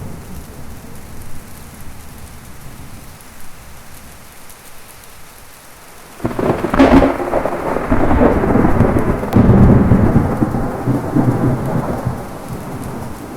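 Thunderstorm with rain. A low rumble of thunder dies away, then about six seconds in a sudden sharp thunderclap breaks and rolls on for several seconds before fading.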